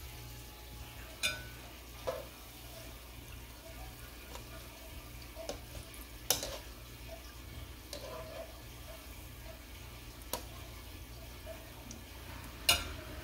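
Sesame-coated pumpkin balls deep-frying in a pan of oil, a steady bubbling sizzle, with several sharp clinks of a wire mesh strainer against the pan, the loudest near the end.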